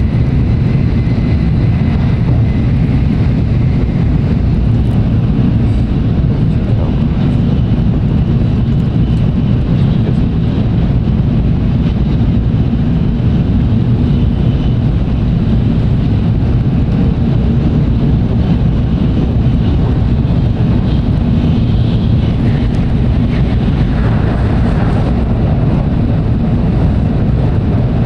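Tokaido Shinkansen Nozomi train running at speed, heard inside the passenger car: a steady low rumble that does not change.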